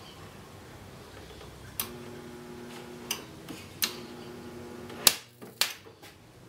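Homemade spot welder built from a microwave-oven transformer, switched on twice while welding thin wire: each time a click and then a steady transformer hum, first for about a second and a half, then for just over a second. It ends with a sharp, loud click.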